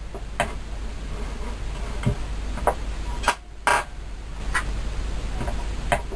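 A string of separate clicks and knocks, the loudest a little past halfway, from the feed lever and depth stop of a Scheppach DP40 bench drill press being worked by hand.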